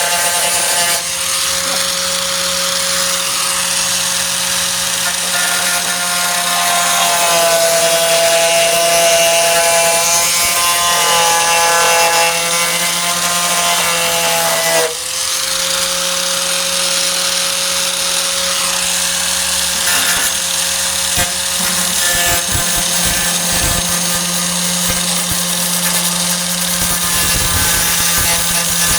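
Electric angle grinder running continuously against the steel of a truck tailgate, a steady high whine with dense grinding hiss. About halfway through it dips briefly in pitch and loudness, then comes back up.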